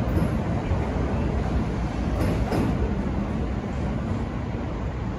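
JR E231-series Chuo-Sobu Line local electric train pulling out and running away along a curved track: a steady rumble of wheels on rail, with a couple of short clicks about two seconds in, fading a little toward the end.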